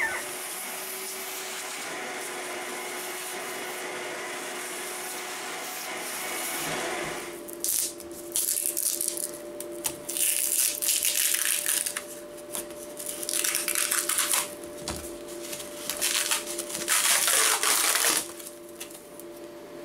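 Masking tape being peeled and torn from a freshly cut acrylic part on a foam board, with the plastic handled and pulled free: a run of loud, scratchy, rasping tears in irregular spurts through the second half. The first several seconds hold only a steady background hum.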